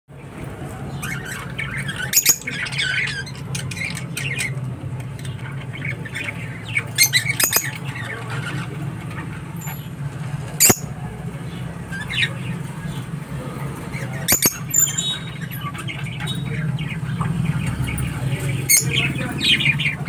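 Rosy-faced lovebirds giving short, high-pitched squawks and chirps in scattered bursts every few seconds, over a steady low hum.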